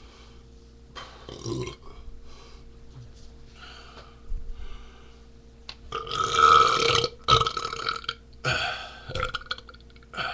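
A man burping on purpose, a series of separate burps, with the loudest and longest about six seconds in and several shorter ones after it.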